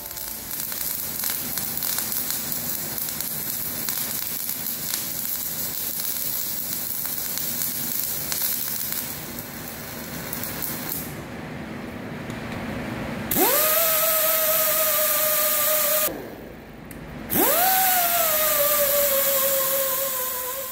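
Metal-core MIG welding arc crackling and hissing steadily for about the first ten seconds. Then an angle grinder spins up twice, a steady whine; on the second run the pitch sags a little as it bears on the weld.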